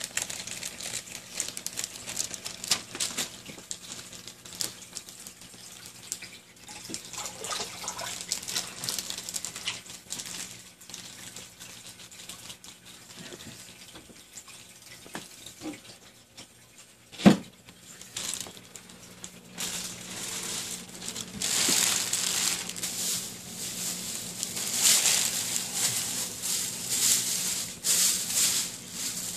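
Aquarium water running and splashing, with a faint steady hum and scattered crackles. One sharp knock comes about 17 seconds in, and the water sound grows louder from about 20 seconds on.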